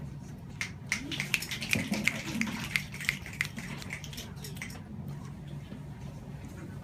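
A small audience's brief, scattered clapping and finger snapping of appreciation, with a little low murmuring. It dies away about five seconds in, leaving a steady low room hum.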